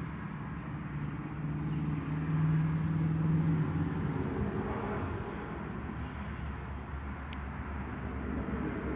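Steady low engine-like hum that swells louder about two seconds in and then eases off.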